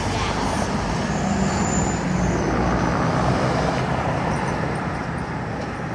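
Freeway traffic passing: a steady rush of tyres and engines with a low engine hum beneath, swelling a little about a second in.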